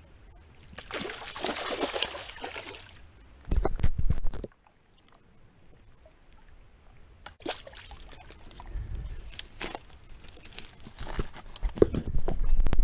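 A hooked Florida gar thrashing and splashing at the water's surface for about two seconds, followed by heavy thumps, clicks and rustling as the fish is hauled out and lands on the grassy bank.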